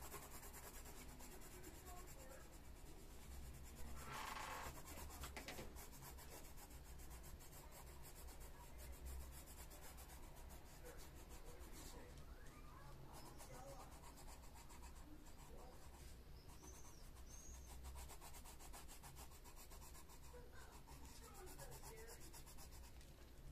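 Faint, steady scratching of a coloured pencil shading back and forth on paper, with one brief louder noise about four seconds in.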